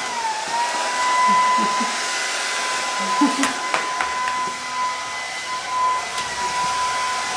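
Hair dryer running on its cool setting: a steady whine over a rush of air, its pitch dipping briefly near the start. A few sharp clicks come about three to four seconds in.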